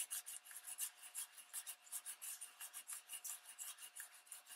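Soft cloth rubbed quickly back and forth over damp, embossed magazine paper, a faint scratchy rasp at about four strokes a second. The rubbing lifts the alcohol-dissolved ink off the raised areas to distress the paper.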